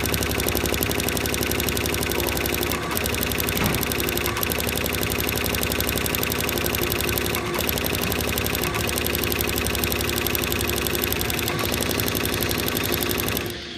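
Tajima embroidery machine running its borer attachment: a rapid, even clatter of strokes as the boring tool punches through water-soluble stabilizer, over a steady motor hum. It starts abruptly and stops near the end.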